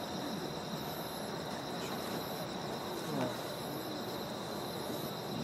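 Steady chorus of night insects trilling, an even high-pitched buzz, with faint voices in the background.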